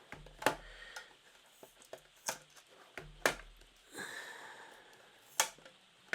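Handling of an action camera's plastic case and its packaging: four sharp plastic clicks and knocks, spaced one to two seconds apart, with a short breathy hiss about four seconds in.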